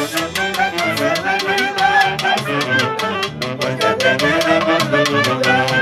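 Andean festival band of saxophones and clarinet with drum kit playing a lively tune over a steady, fast drum and cymbal beat. Some of the players sing along in the second half.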